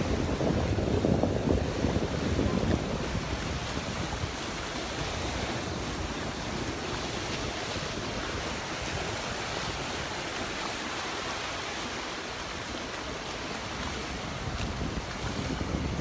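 Surf washing onto a Gulf of Mexico beach, with wind buffeting the microphone, strongest in the first three seconds.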